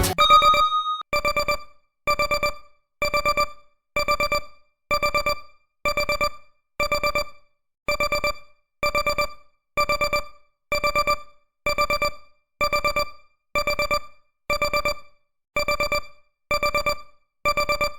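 Digital timer alarm beeping. One longer beep at the start, then repeated groups of four quick beeps, about one group a second.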